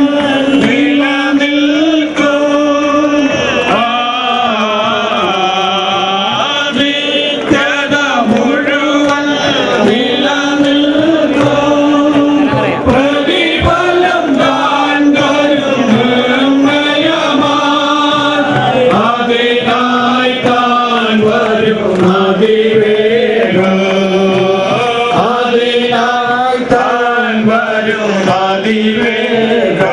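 A group of voices singing a slow, chant-like hymn together in unison, the melody gliding between long held notes without a break.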